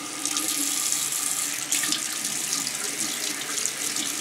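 Bathroom faucet running into a sink, turned up about a third of a second in, with hands rubbing and rinsing under the stream and the water splashing.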